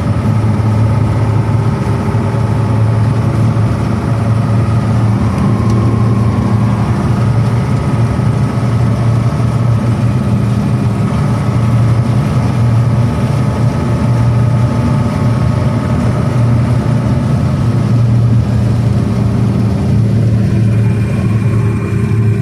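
KamAZ truck's diesel engine running steadily at an even speed, with a deep, unchanging hum.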